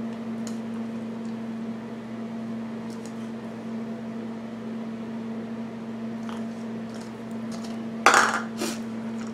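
Glass bowl set down on a hard counter with a loud clink about eight seconds in, followed by a smaller knock half a second later. Before that, faint light ticks as shredded cheese is sprinkled by hand, over a steady low hum.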